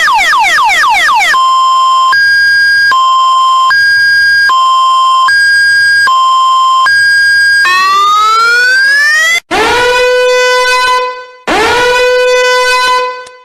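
Emergency-vehicle siren effects played one after another: a short run of fast falling sweeps, then a two-tone high-low siren switching between its two notes about every three-quarters of a second, then one rising wail. About nine seconds in, three long horn-like blasts follow, each swooping up to a steady low note.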